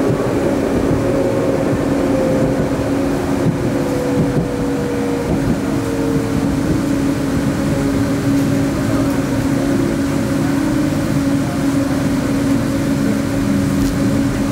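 Tram interior ride noise: steady rolling rumble and a constant electrical hum, with the traction motor's whine falling in pitch a few seconds in as the tram slows.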